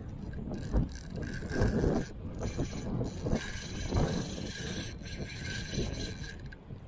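Fishing reel whirring under load from a big jack crevalle on the line, in short stretches at first, then steadily from about three seconds in, cutting off abruptly near the end. Dull low knocks underneath.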